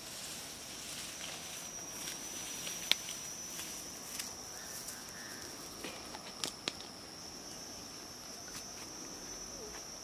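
Steady high-pitched insect drone, with sharp snaps and rustles of feet moving through tall grass and brush; the loudest snap comes about three seconds in, and a few more fall between six and seven seconds.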